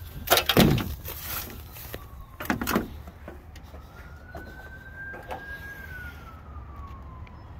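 Loud clunks and knocks of someone climbing an aluminium ladder onto a trailer roof, in two bursts, about half a second in and again about two and a half seconds in. Behind them a faint distant siren wails slowly up and down.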